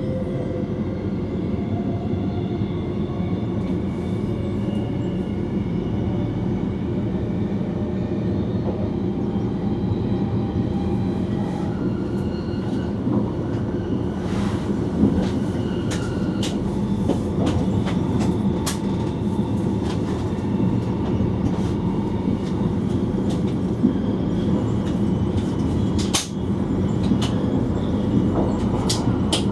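Electric passenger train running along the line, heard from the driver's cab: a steady rumble with a faint motor whine, and from about halfway on a scatter of sharp clicks from the wheels passing over rail joints and points.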